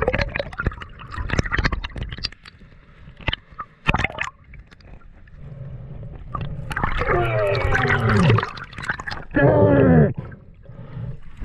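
Water heard underwater, gurgling and sloshing around a swimming snorkeler, with scattered clicks and knocks in the first few seconds. Later come two muffled, voice-like sounds falling in pitch.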